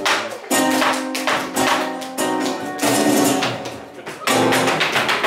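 Live flamenco ensemble playing a jazz-flamenco soleá: guitars strike loud accented chords that ring on, with percussive taps from the group.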